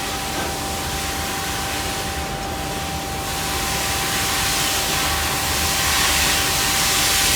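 A machine running steadily: a loud even hiss with a constant thin whine, growing a little louder in the second half.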